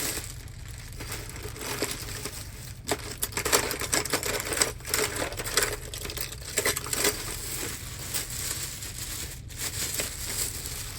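Hands rummaging through a stock of key blanks, with crinkling, rustling and small clattering clicks, busiest from about three seconds in to about seven.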